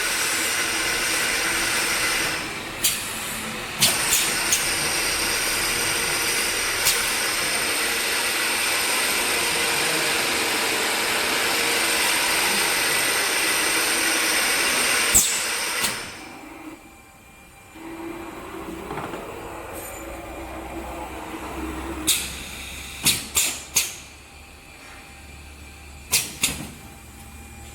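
Foam roller drilling machine running with a steady hissing mechanical noise and a few sharp clicks. About two-thirds of the way through it drops off suddenly to a quieter hum, then several sharp clicks follow close together.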